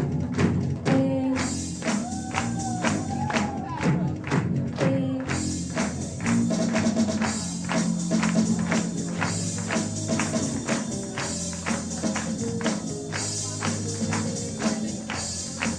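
Live band music with a steady beat of sharp percussion strikes. A singer's voice is heard over it in the first five seconds, then the music goes on instrumentally.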